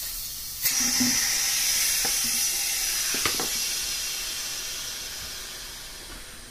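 Air hissing back into an evacuated vacuum chamber as the vacuum is released: a sudden hiss starts under a second in and slowly fades as the pressure evens out. There are faint knocks about three seconds in.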